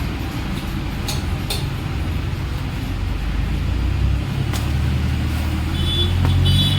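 An engine or motor running steadily with a low rumble, getting louder about three seconds in, with a few sharp clicks over it.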